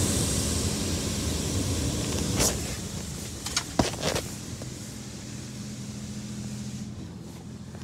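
Automatic car wash spraying water onto the car, heard from inside the cabin. The spray fades away over the first few seconds, with a few sharp knocks near the middle. A low steady hum is left after that.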